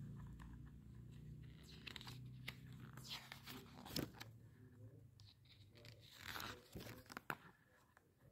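Paper pages of a spiral-bound desk calendar turned by hand, rustling and crackling. One page turn comes around the middle and another near the end.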